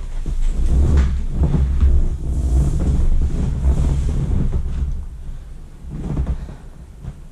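Low, uneven rumbling wind noise on the microphone, dying away over the last couple of seconds.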